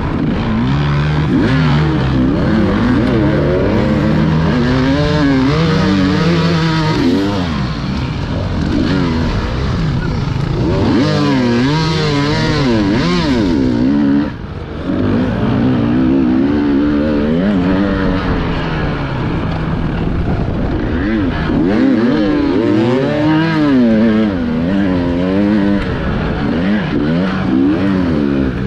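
Small, fast-revving motors whose pitch swings up and down every second or so, with a brief drop in level about fourteen seconds in.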